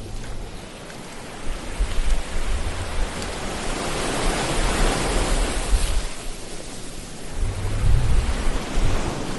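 Ocean-surf sound clip: waves washing in, the hiss swelling to its loudest about halfway and easing off, with a low rumble of a breaking wave near the end.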